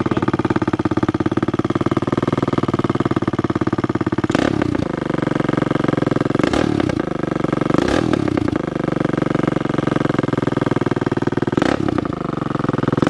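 A 200cc pitbike's single-cylinder engine, freshly rebuilt with a new cylinder, running steadily while the bike stands still. There are four short louder moments, about four, seven, eight and twelve seconds in.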